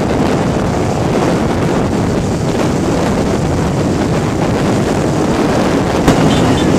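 Wind buffeting the camera microphone on a motorcycle moving at road speed, with the engine's drone underneath. A single short knock about six seconds in.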